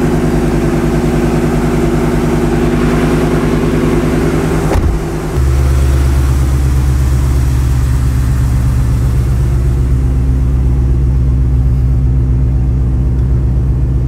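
Supercharged 5.8-litre V8 of a 2014 Shelby GT500 fitted with ARH headers, idling steadily as heard from inside the cabin. About five seconds in there is a click and a brief break, after which the idle goes on with a heavier low rumble and less of the higher tones.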